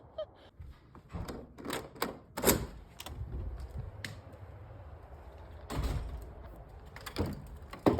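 Irregular crunching steps in snow, with a dozen or so sharp crunches and a louder scuffing patch about six seconds in.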